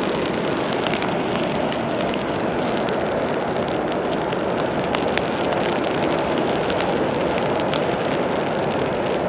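Electric forge blower running steadily on low, a constant rushing hum of air forced up through the fire pot, with faint scattered crackles from the burning charcoal and coal.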